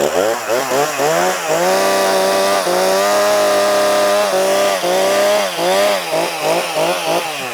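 Two-stroke chainsaw revving: repeated quick throttle blips, held at high speed for about two seconds in the middle, then more blips before it drops back near the end.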